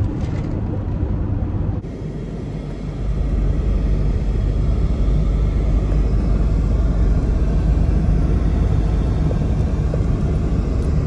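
Steady low rumble of road and engine noise heard inside a moving car's cabin. It grows louder about two seconds in and then holds steady.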